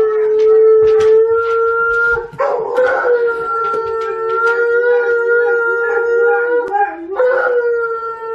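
Dogs howling in long, steady held notes, with short breaks about two seconds in and again about seven seconds in: Siberian huskies howling along with a malamute howling on the TV.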